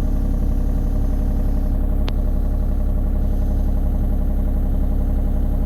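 Kubota U35-4 mini excavator's diesel engine running steadily, with a single sharp click about two seconds in.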